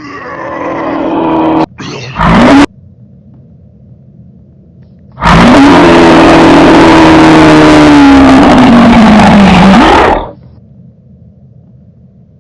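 Deliberately overdriven, clipped audio blasts. A pitched blare swells for about two seconds and is followed by a short blast. Then comes a five-second distorted blare whose pitch sags and climbs back before cutting off, over a steady low hum.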